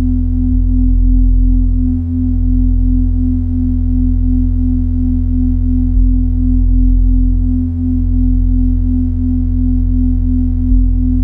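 Minimal electronic drone music of steady synthesizer sine tones: a held middle tone pulsing a few times a second over deep bass tones that shift about every five seconds, with faint higher tones held throughout.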